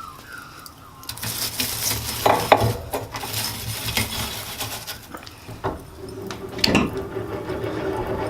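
Metal clanking and clinking, with several sharp strikes, as steel stock and tools are handled in a blacksmith's smithy, over a steady rushing noise with a low hum that begins about a second in.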